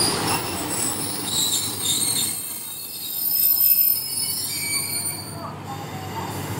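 Kiha 32 diesel railcar creeping into the platform, its wheels and brakes squealing in several high pitches as it slows, loudest about halfway through.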